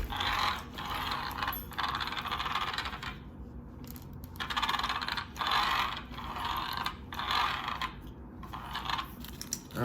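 Rapid ratchet-like mechanical clicking from small parts of an RC car being worked by hand. It comes in about seven bursts of roughly a second each, with short pauses between them.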